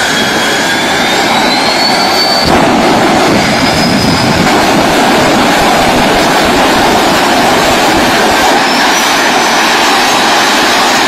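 Loud car engine and exhaust running hard in a steady roar, with a thin high whine rising in pitch over the first couple of seconds. The sound changes abruptly about two and a half seconds in, and brief high whines return later.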